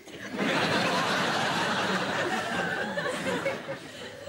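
Studio audience laughing: a burst of crowd laughter that swells about half a second in and thins out after about three seconds.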